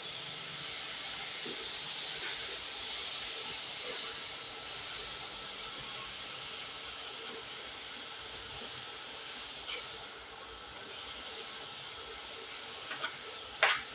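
Sliced bitter gourd (ampalaya) sizzling in a frying pan with a steady hiss while it is stirred with a metal spatula. There are a few faint scrapes, and a sharper click from the spatula on the pan near the end.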